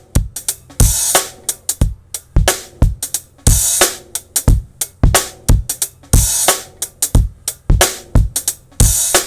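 Full drum-kit loop playing through a dbx 160A compressor set to a small ratio for light, transparent compression: steady kick and snare hits with hi-hat, and a crash cymbal about every three seconds.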